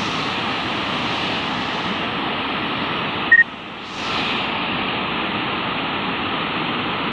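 Flood water rushing steadily out of a small canal sluice gate, a constant even rush. About three seconds in, a short sharp blip is followed by a brief drop in the rush before it returns.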